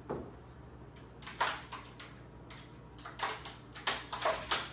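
Large 3D-printed plastic T-Rex skull and jawbone creaking and cracking as the jaw is pressed into place: a sharp crack about a second and a half in, then several more in the last second and a half. The maker takes these for the internal infill lines separating from the walls, with no damage showing outside.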